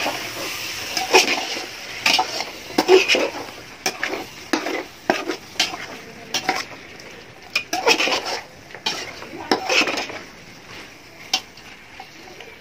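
Metal spatula stirring and scraping thick chicken masala against the sides of a large metal cooking pot over the fire, with a light sizzle. The scrapes come irregularly, about once a second, and ease off near the end.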